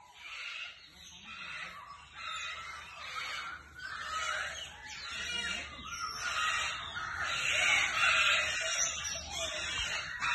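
Lutino sulphur-crested cockatoo calling, a string of short squawks about one a second that grow louder toward the end.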